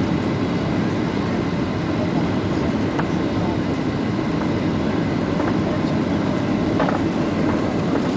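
Steady engine and airflow noise inside a jet airliner's cabin on final approach, low over the runway just before touchdown, with a few faint ticks.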